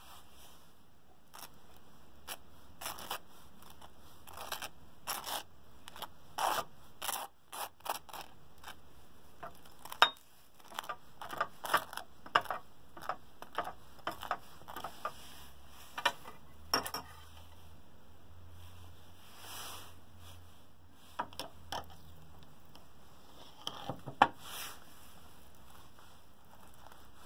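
Table knife scraping butter and then crunchy peanut butter across dry toast: a long run of short, irregular scraping strokes, with a couple of sharper clicks.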